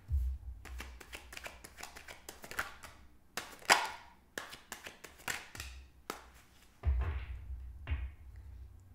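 A deck of cards being shuffled by hand: a run of irregular quick card snaps and taps, a few of them louder, with dull low handling bumps in between.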